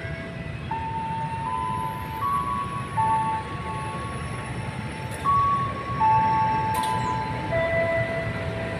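Low rumble of a CC203 diesel-electric locomotive approaching slowly. Over it plays a slow tune of single held notes that step up and down, ending on a lower note.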